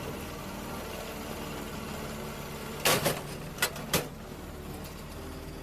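Log splitter's engine running steadily, with a few sharp knocks about three to four seconds in.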